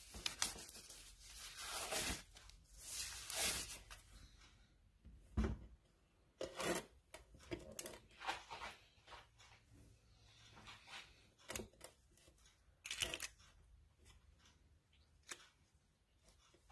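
Thin disposable plastic gloves being peeled off the hands and crumpled: a run of crinkling and rustling over the first few seconds, then scattered light crinkles and clicks.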